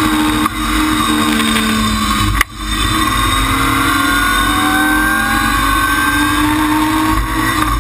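BMW Compact M3ti rally car's straight-six engine, heard from inside the cabin, pulling hard under acceleration with its pitch climbing. About two and a half seconds in it briefly drops off for an upshift, then climbs again through the next gear. Another short lift comes near the end.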